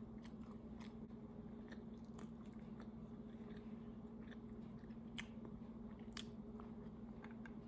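A person chewing braised ham close to the microphone: scattered small wet mouth clicks, a few louder ones about five and six seconds in, over a steady low hum.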